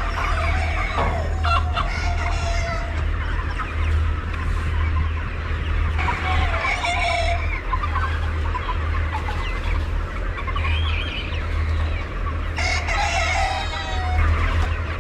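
A large flock of chickens clucking over one another, with a rooster crowing now and then, over a steady low hum.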